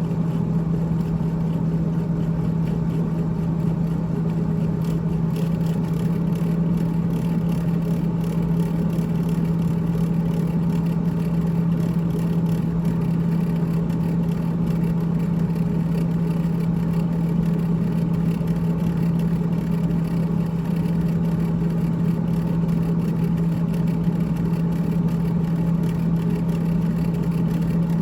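GE GTH18XCTZRBB refrigerator running with a steady low hum and the rattle of its evaporator fan.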